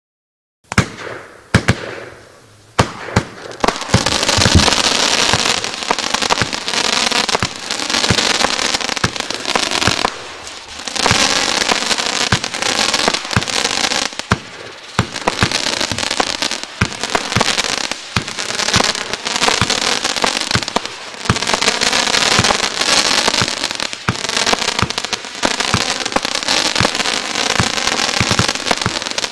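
Multi-shot consumer firework cake, 'Desert Storm' (Буря в пустыне), firing in sequence. A few separate launch bangs come in the first seconds, then a dense, continuous barrage of bangs and crackling bursts with short lulls about a third and halfway through.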